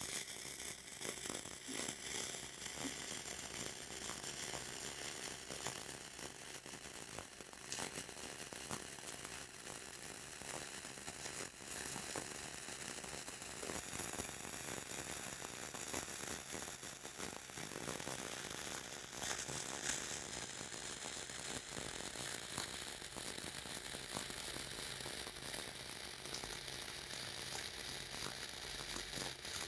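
Flux-core wire-feed welding arc, 0.045 wire, running a cap pass on pipe: a steady hiss dotted with many small pops.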